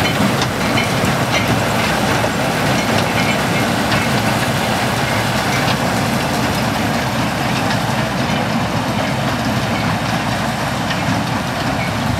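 Grimme SE 150-60 trailed beet harvester working as it lifts red beet: a steady mechanical rattle of its sieve webs and conveyors over the running engine pulling it. It grows slightly fainter as the machine moves off along the rows.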